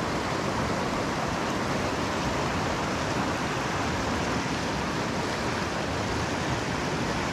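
Fast river water rushing over a shallow, rocky riffle: a steady, even rush.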